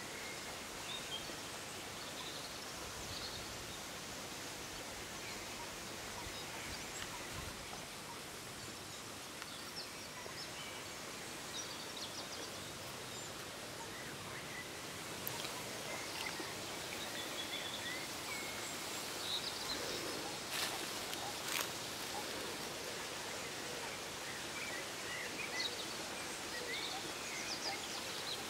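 Steady outdoor background noise with scattered faint high bird chirps, and a few sharp clicks about twenty seconds in.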